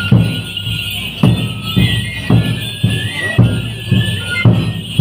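Andean huaridanza music: a flute melody over steady drum beats, a little under two beats a second.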